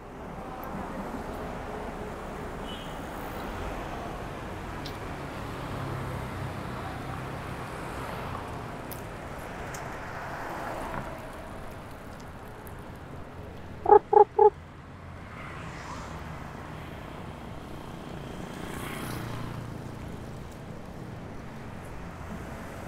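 Steady street traffic noise, with three short, loud beeps in quick succession about fourteen seconds in.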